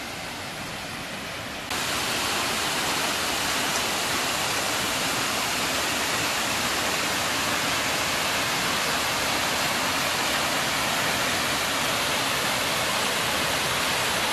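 Small waterfall spilling over stone ledges into a pond: a steady rush of splashing water, which jumps abruptly louder about two seconds in.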